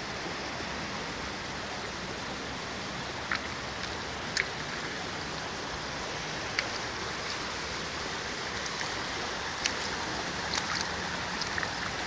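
Shallow mountain river (the Silinka) rippling steadily over pebbles, running very low, with a few faint clicks.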